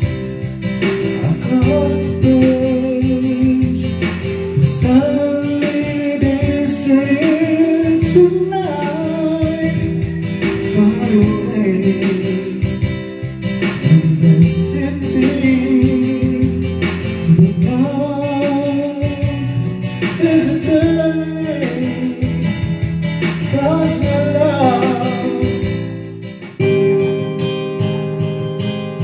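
Karaoke song playing with a sung melody over guitar and band accompaniment; a little before the end it drops away and the next song's acoustic guitar intro starts.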